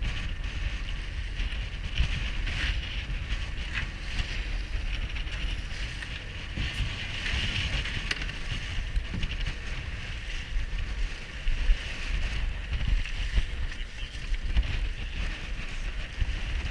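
Wind buffeting the microphone, with choppy waves washing and splashing against a layout boat's hull alongside its tender.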